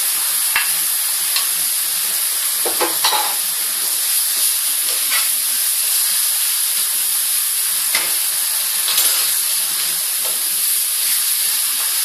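Canned chopped tomatoes sizzling in a hot oiled pan over fried onion and spices, a steady hiss. A slotted spatula stirs through them, giving a few short scrapes and knocks against the pan.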